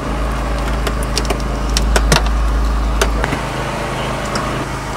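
Engine-driven hydraulic power unit for LUKAS rescue tools running steadily, with a scatter of sharp cracks and clicks during the first three seconds as the hydraulic tool works on the car's body and trim.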